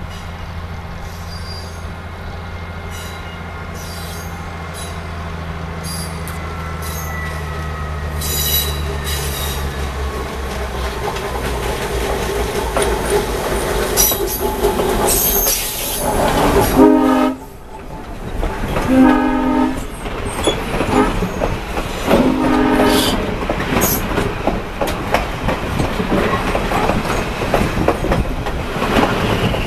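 A diesel locomotive pulling passenger coaches approaches and passes close by, its engine running and growing louder. About halfway through its horn sounds three times, the first blast the longest. Then the coach wheels squeal and clack over the rails as the train rolls past.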